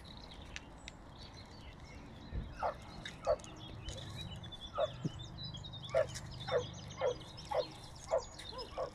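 A run of about nine short animal yelps or honks, each dropping in pitch. They start a couple of seconds in and come about twice a second toward the end, with small birds twittering high over them.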